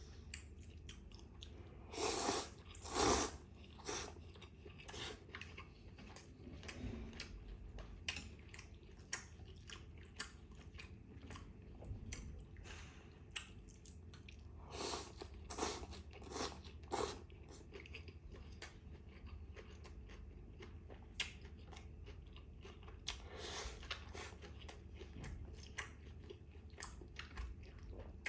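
Close-miked chewing of bún trộn bò, mixed rice vermicelli noodles with beef: a run of small wet mouth clicks and crunches, with louder bursts about two seconds in, around the middle, and again past twenty seconds.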